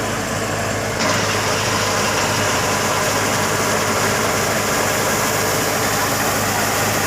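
Rice harvesting machine's engine running steadily with a constant hum. About a second in, a louder rushing noise joins on top and holds.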